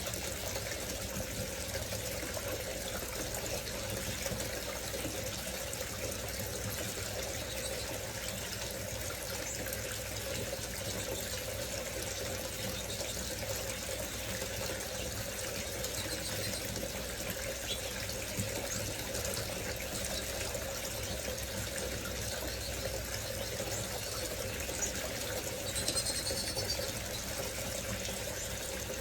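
Decorative water fountain running, with a steady splashing of falling water. Near the end there is a brief high-pitched chirp.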